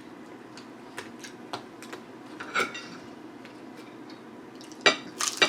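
Knife and fork clicking against a plate while cutting chicken: scattered light clicks, then two sharp, ringing clinks near the end.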